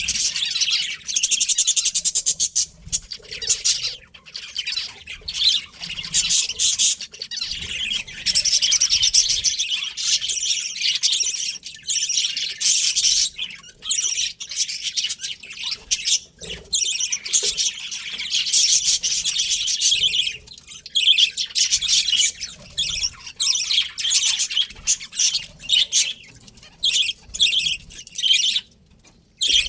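Budgerigars chirping and chattering in a dense, nearly unbroken stream of quick high calls.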